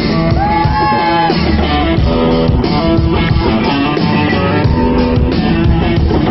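Loud live pop-rock music over a concert sound system, with drums and guitar and a held high note about half a second in, recorded on a phone in the audience.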